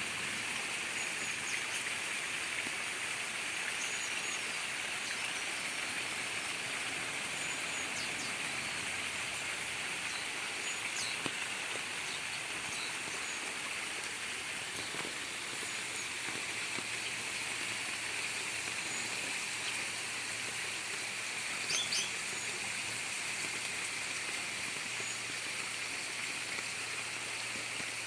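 Steady rain with gurgling rainwater running, a constant even hiss. Short high bird chirps come through it now and then, a brief cluster of them a little past the middle.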